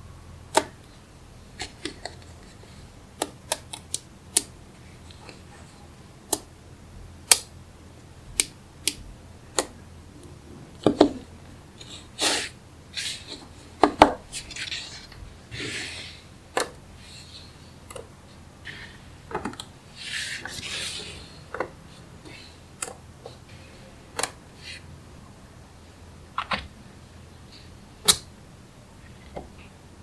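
Small neodymium magnetic balls snapping together with sharp clicks, irregularly spaced, roughly one every second or so. A few longer scraping stretches fall between the clicks.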